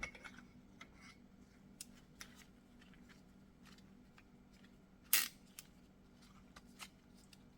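Scattered light clicks and knocks of metal tools being handled at the brake caliper, with one sharper click about five seconds in, over a faint steady hum.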